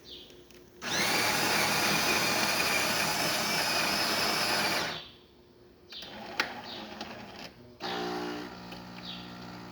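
Jura C9 super-automatic espresso machine starting an espresso cycle: its built-in grinder grinds beans for about four seconds, then after some brief mechanical clicks and whirring the pump starts with a steady low hum for pre-infusion.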